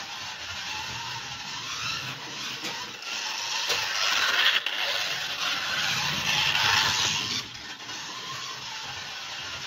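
Scalextric slot car running on the plastic track, the noise of its small electric motor and its passage along the slot rising as it comes close between about four and seven and a half seconds in, with a brief click near the middle.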